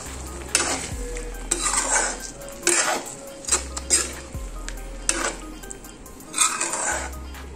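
Slotted metal spoon stirring thick paneer gravy in a metal kadai, scraping and knocking against the pan in irregular strokes about once a second.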